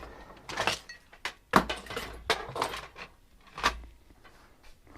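Small metal parts and tools being handled on a workbench: a handful of sharp clinks and knocks at irregular intervals, the loudest about one and a half seconds in.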